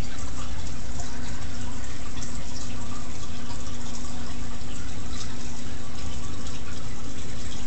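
Aquarium water bubbling and splashing steadily as a stream of air bubbles rises through the tank, over a steady low hum.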